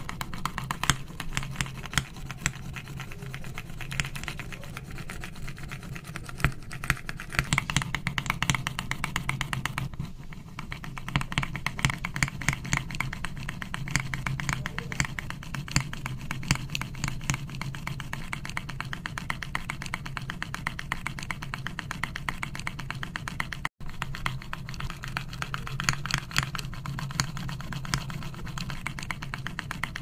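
A 1 mm bit in a hand pin vise scraping and grinding into a copper-clad circuit board as it is twisted by hand to start pilot holes: a dense run of fine scratching clicks over a steady low hum, with a brief dropout about two-thirds of the way in.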